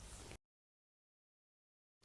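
Near silence: faint room tone that cuts off completely a third of a second in, leaving dead silence, as at an edit cut.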